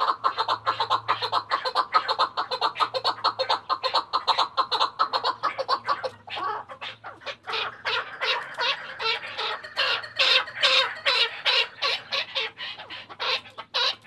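Chukar partridge calling: a fast run of short repeated chuck notes that spread out and grow stronger from about halfway through.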